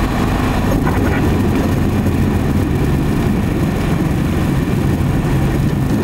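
Embraer EMB-712 Tupi's four-cylinder Lycoming O-360 engine and propeller running steadily, heard from inside the cockpit while the plane rolls along the runway.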